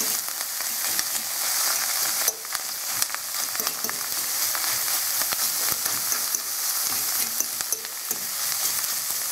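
Chopped green onion scapes and beaten egg sizzling in a stainless steel frying pan, with a fork scraping and clicking against the pan as they are stirred.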